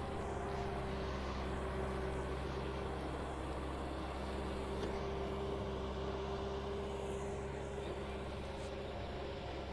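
Kubota M6040 SU tractor's diesel engine running steadily under load while it drives a rotary tiller through wet paddy mud, a constant drone with no change in pitch.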